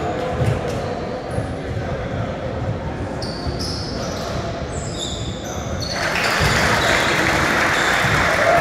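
Basketball game sounds in a gym: the ball bouncing on the hardwood, sneakers squeaking and crowd chatter echoing in the hall. About six seconds in, the crowd gets louder.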